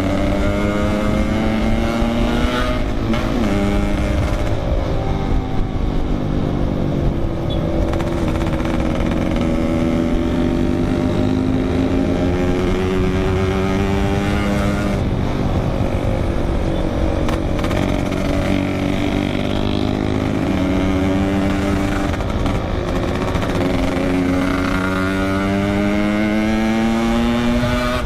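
Yamaha RX-King 135cc single-cylinder two-stroke motorcycle with an aftermarket expansion-chamber exhaust, ridden hard. The engine pitch climbs and then drops back at each gear change, several times over.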